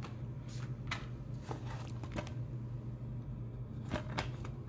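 Hands handling an open plastic Blu-ray case: a few scattered light clicks and rubs of plastic over a steady low hum.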